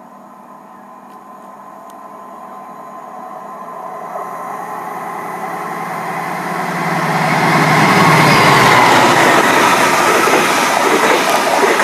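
Locomotive-hauled passenger train with double-decker coaches approaching and running in alongside the platform. Its rumble grows steadily louder over about eight seconds into a loud rush of wheels on rails as the train comes past.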